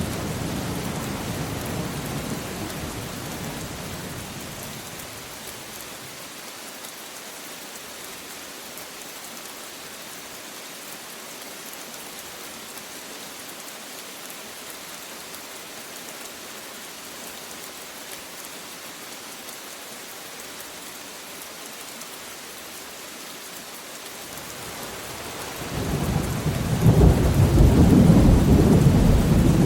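Steady rain falling, with a rumble of thunder dying away over the first few seconds. A louder, deeper thunder rumble builds near the end.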